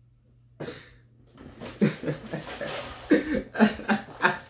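A young man laughing and breathing hard in short bursts while he rummages and lifts a game console. There is a sudden rustling bump about half a second in.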